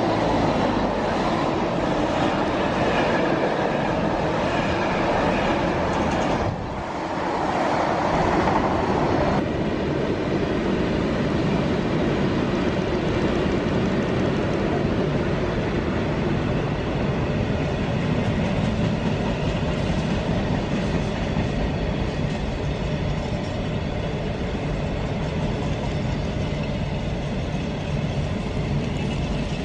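Train running on the rails: a continuous loud rumble of wheels on track with some clickety-clack. The sound dips briefly about six and a half seconds in and becomes duller about nine and a half seconds in.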